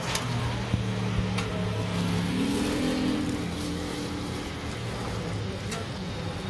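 An engine runs steadily, its pitch rising and wavering for about a second around two and a half seconds in, with a few light clicks and knocks.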